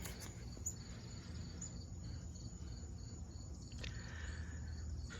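Faint insects chirping in a steady, even rhythm, over a low background rumble.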